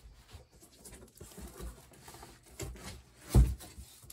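Cardboard packaging being handled inside a shipping box, with soft scattered scraping and rustling of cardboard and a louder thump about three and a half seconds in.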